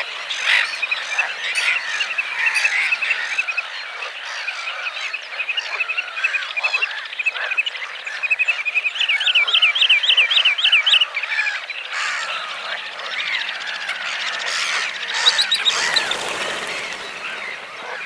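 Marsh chorus of many frogs calling over one another, mixed with bird calls, including a quick run of about ten rising-and-falling whistled notes about halfway through.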